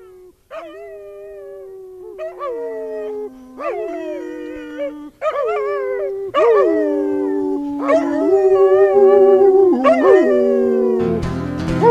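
Dogs howling: a run of long howls, each sliding up at its start and then held, overlapping one another and growing louder. Music comes in near the end.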